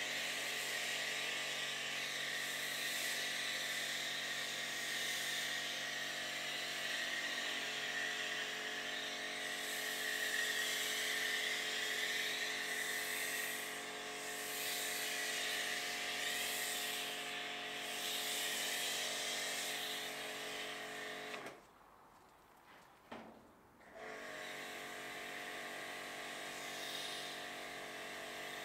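BigBoi WashR detailer pressure washer's motor and pump running with a steady whine, the snow foam gun hissing as it sprays foam. A little over twenty seconds in, the machine cuts out for about two seconds, then starts again.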